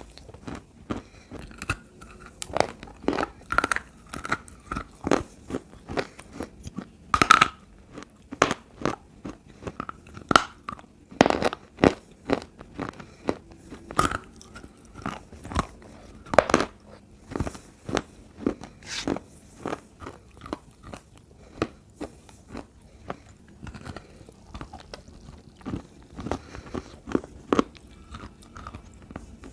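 Close-up biting and chewing of edible clay: sharp crunches follow one another at an irregular pace, some in quick clusters.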